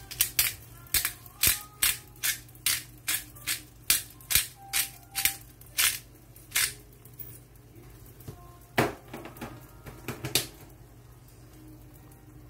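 A regular run of sharp clicks or knocks, about two and a half a second, stopping about six and a half seconds in, then a short cluster of a few more a couple of seconds later, over faint background music.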